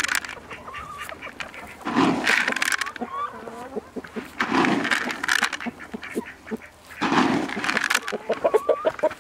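Ducks and chickens calling, with a quick string of short quacks near the end. Three loud swishing rushes, about every two and a half seconds, of feed grain flung from a bucket across wet grass.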